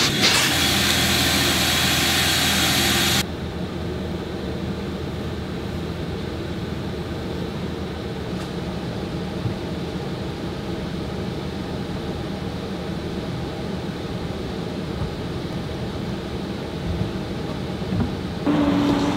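A loud steady hiss that cuts off abruptly about three seconds in, then the steady low engine and road rumble of a car being driven. Near the end a steady hum starts.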